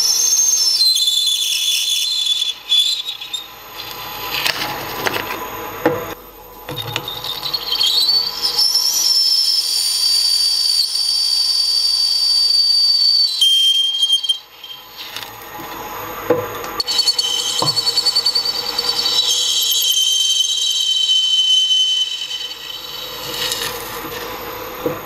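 A 3.8 mm twist drill in a drill press cutting through a steel plate, the bit squealing with a high-pitched whine. There are three long squeals, each stepping down in pitch as the cut goes on, separated by short pauses with a few knocks.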